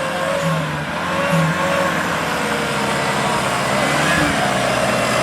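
Off-road 4x4's engine running steadily, with faint voices in the background.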